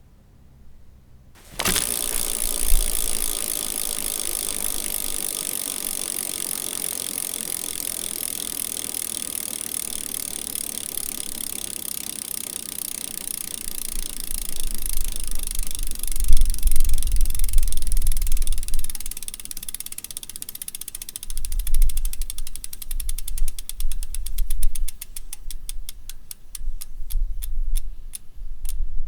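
Bicycle freewheel ratchet clicking as the wheel spins freely. It starts suddenly at a fast buzzing rate and slows gradually until the individual clicks can be picked out near the end. Low rumbling thumps of handling or knocks come and go in the second half.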